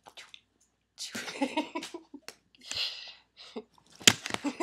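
A woman laughing in short pulsing bursts, with a sharp knock about four seconds in.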